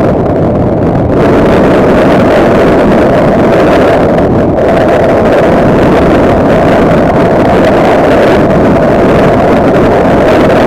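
Vehicle under way: steady engine running mixed with loud wind rush on the microphone.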